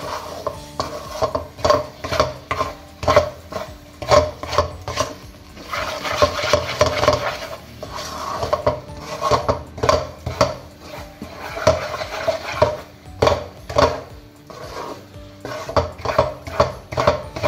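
Wooden spatula stirring and scraping a thick, grainy ground-rice and caramel mixture around a nonstick frying pan, in quick repeated strokes.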